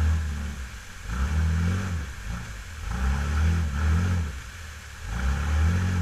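A Jeep's engine revving hard in four surges, each rising and falling in pitch, as it strains to climb a waterfall ledge with its wheels spinning in the water. Rushing water and spray run underneath.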